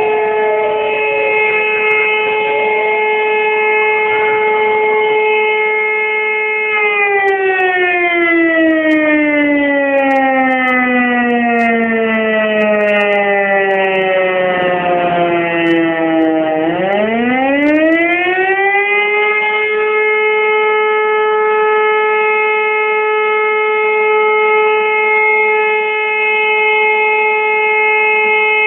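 Volunteer fire station's mechanical alarm siren sounding the call-out for firefighters: a steady held tone that, about a quarter of the way in, winds slowly down in pitch for about ten seconds, then climbs quickly back up and holds steady again.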